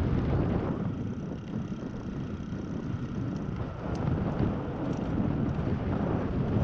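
Wind buffeting the microphone of a camera on a moving bicycle: a steady low rumbling rush of noise.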